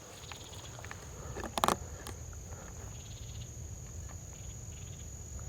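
Steady, high-pitched insect trill, with a single short crunch about one and a half seconds in.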